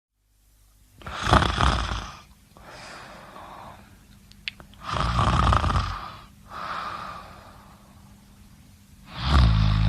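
A person snoring: three loud snores about four seconds apart, each followed by a softer, airy breath, with a brief click near the middle.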